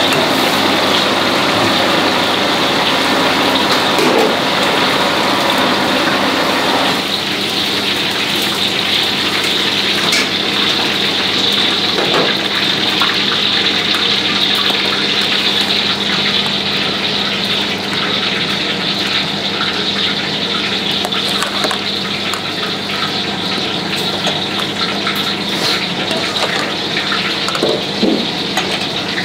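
Steady rushing roar of a commercial kitchen gas range, with a low steady hum under it. Some of the deeper rumble eases about seven seconds in, and a few light metal clinks of a ladle against the pot are heard.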